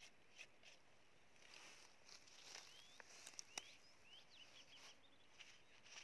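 Near silence: faint outdoor ambience, with a few short rising bird chirps and a couple of faint clicks in the middle.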